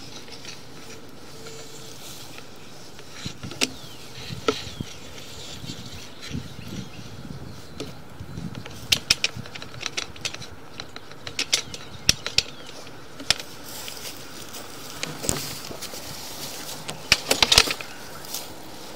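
Sewer inspection camera being pushed down a new sewer line: irregular sharp clicks and knocks from the camera and its push cable over a faint steady hiss, with a thicker cluster of clicks about halfway through and another near the end.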